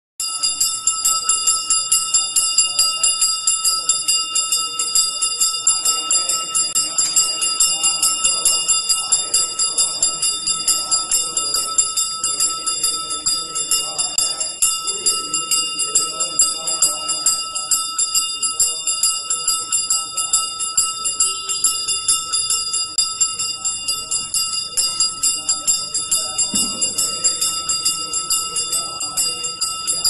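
Temple bell rung rapidly and continuously during an abhishekam, a steady ringing with quick even strokes and several high overtones. Softer voices waver underneath.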